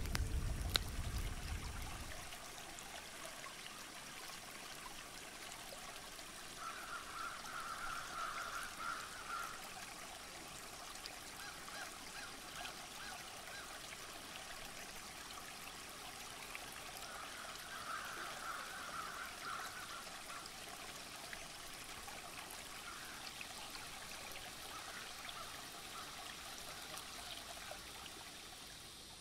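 Background music fading out in the first two seconds, then faint outdoor ambience: a steady hiss like distant trickling water, with two stretches of faint, distant chattering bird calls, a few seconds each.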